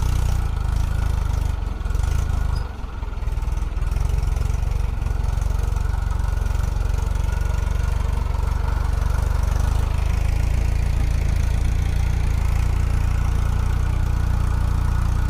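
Mahindra Arjun 555 tractor's diesel engine running steadily under load as it pulls a trolley through deep mud ruts, dipping briefly about three seconds in.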